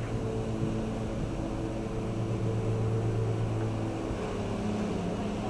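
A motor running steadily: a low hum made of several held tones, some of which shift slightly in pitch.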